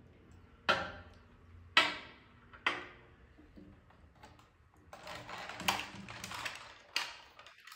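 Hard plastic model kit parts clicking and snapping as they are handled and fitted together: three sharp snaps about a second apart, then a busier run of smaller clicks and rattling.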